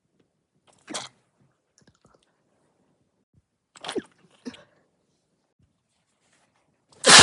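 A person stifling sneezes: short bursts of breath through the nose, one about a second in, two close together around four seconds in, and a louder one near the end.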